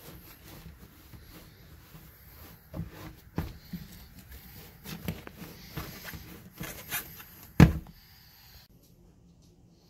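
Shuffling steps and scattered knocks on a tile floor as someone steps into sneakers, mixed with phone handling noise. One sharp thump, the loudest, comes about three-quarters of the way in.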